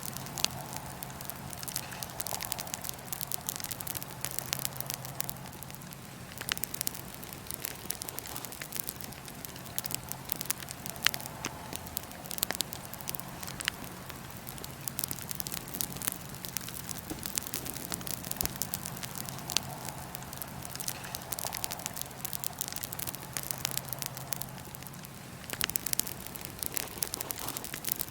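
Wood fire in a fire pit crackling, with many sharp pops scattered irregularly over a steady hiss. A low steady hum runs underneath.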